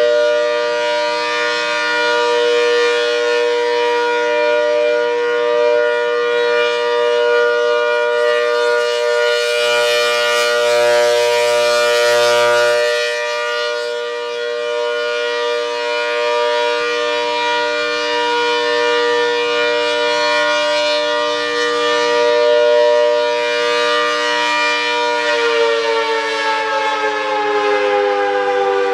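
ACA Hurricane 130, a 130 dB 8/10-port tornado siren, sounding its steady alert-signal chord at full speed. Near the end the chord starts to fall in pitch as the siren winds down at the close of its three-minute alert signal.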